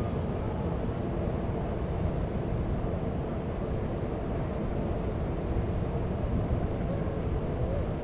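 Steady low rumble of outdoor city ambience, even in level, with no distinct events standing out.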